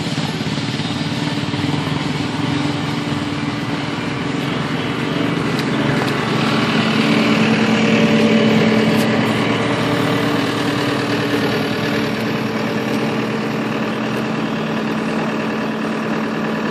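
Kawasaki KFX 450R quad's single-cylinder four-stroke engine running steadily while towing a Panterra 90cc quad to pull-start it. The engine note swells about six seconds in, is loudest around eight seconds, then eases back.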